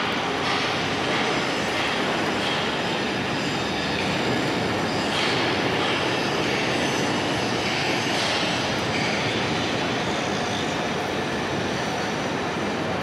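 Steady din of a steel fabrication shop: continuous machinery noise with no single clear source, level and unchanging throughout.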